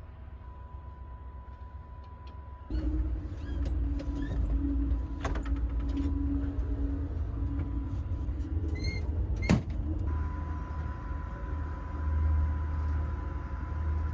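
Low rumble inside an Amtrak Coast Starlight sleeping car that swells up suddenly about three seconds in, with scattered clicks and rattles and one sharp click about halfway through.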